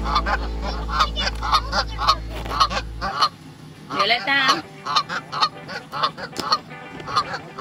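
Canada geese honking in a rapid, even run of short calls, about three a second.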